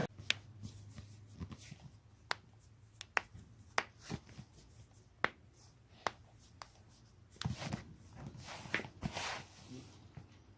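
Joints being cracked by hand: a series of about a dozen sharp single pops at uneven intervals, some louder than others.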